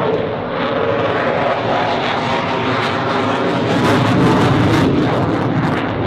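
A Dassault Rafale fighter's twin jet engines run loud and steady during an aerobatic display, with a harsh crackle between about three and five seconds in.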